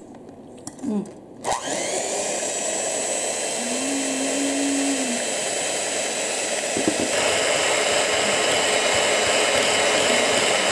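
Electric hand mixer (TSK-9401C) running, its twin beaters whipping egg whites and sugar for a meringue in a stainless steel bowl. It starts about a second and a half in, and its sound steps up, a little louder and brighter, about seven seconds in.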